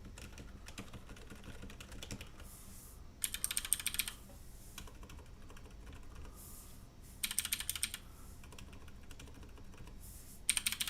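Typing on a mechanical keyboard with Cherry MX Silent Red switches: steady, soft key clicks, broken three times by short bursts of fast, louder typing.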